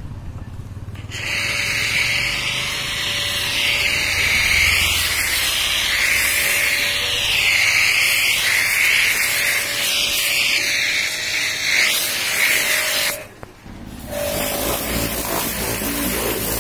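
Pressure washer jet hissing against a car's side panels and the wet ground, over the steady hum of the washer's pump. It starts about a second in, stops briefly near the end and starts again about a second later as the trigger is released and pressed again.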